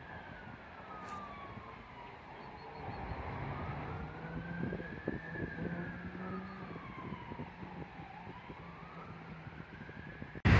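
Faint emergency-vehicle siren wailing, its pitch slowly rising and falling a few seconds each way, over a low traffic rumble.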